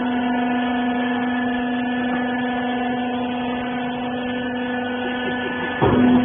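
Wiper bagging baler machine running with a steady machine hum. A short, louder sweeping surge comes near the end.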